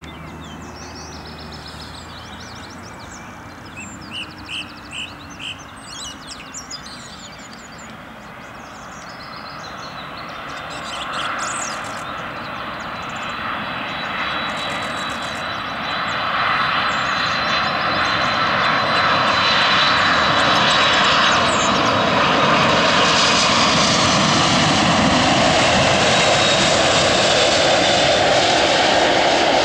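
Twin-engine Airbus A330 jet airliner on final approach, its engines' rumble and a steady high whine growing louder as it comes in low and passes close by, loudest in the second half.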